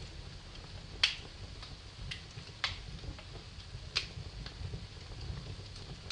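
Wood fire crackling in a fireplace, with sharp pops about a second in, halfway through and at about four seconds, plus lighter ticks, over a low steady rumble of the flames.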